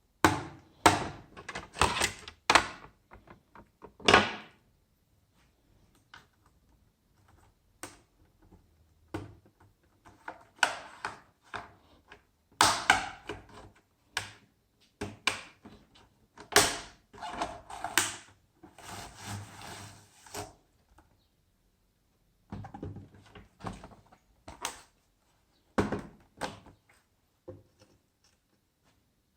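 Handling of a laptop during repair: irregular clicks, knocks and short scrapes of hard parts being moved and fitted, in bursts with brief quiet pauses.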